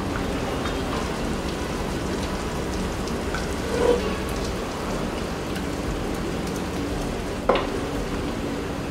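Pot of soup broth simmering with a steady bubbling hiss while a wooden spoon stirs it. About four seconds in there is a brief plop as quail eggs go into the broth, and near the end the spoon gives one sharp knock against the pot.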